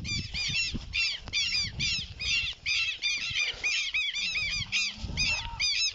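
Birds calling in a steady run of short, high chirps, several a second, over a low rumble.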